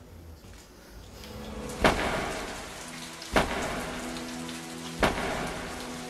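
Rain sound effect with three sharp thunder cracks about a second and a half apart, over a soft held chord of background music.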